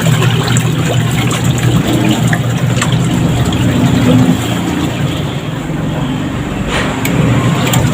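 Washing machine running with water in the tub: a steady motor hum with water swishing as the pulsator agitates. It is running on a newly replaced timer switch, which has restored its reversing wash action.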